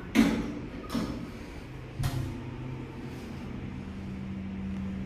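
Sliding doors closing with three sharp clunks in the first two seconds, followed by a steady low mechanical hum.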